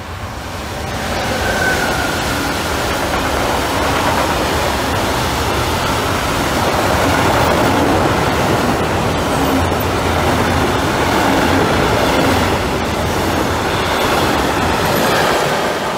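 E483 electric freight locomotive running through the station, followed by a long train of sliding-wall box wagons rolling past with a steady rumble of wheels on rail. It grows louder over the first two seconds as the locomotive comes close, then holds while the wagons go by.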